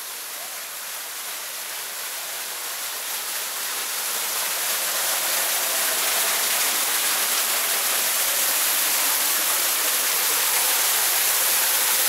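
Small artificial waterfall pouring over fake rock into a shallow pond, a steady rush and splash of water. It grows louder over the first few seconds, then holds steady.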